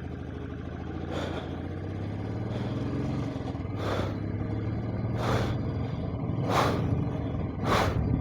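Royal Enfield Classic 350's single-cylinder engine running steadily, just restarted after stalling at high altitude, with the choke just pushed back in; its pitch rises slightly about three seconds in. About five short rushing noises cut across the engine sound.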